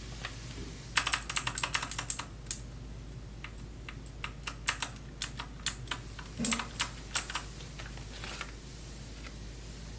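Typing on the AUKEY KM-G3 mechanical keyboard's clicky blue switches. A fast run of keystrokes comes about a second in, then slower, scattered keystrokes, one of them a deeper thud, which stop a little before the end.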